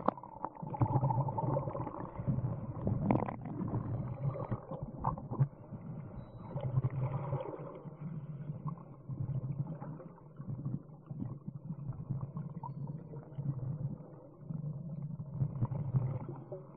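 Scuba divers' exhaled bubbles from their regulators heard underwater: low bubbling rumbles in bursts a few seconds apart, with a few sharp clicks.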